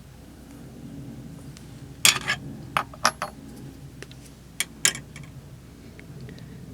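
A handful of sharp clicks and light metallic clinks, bunched between about two and five seconds in, from Beyblade top parts being handled.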